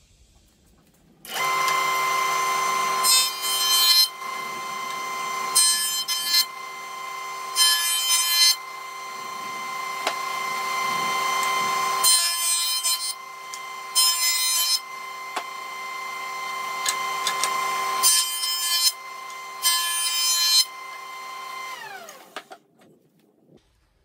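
A Craftsman 6-1/8-inch jointer-planer is switched on about a second in and its motor runs with a steady whine. 2x4 boards are fed over the cutterhead in about seven short passes, each a burst of cutting noise, taking a light skim off the faces so the boards will glue up. Near the end it is switched off and winds down.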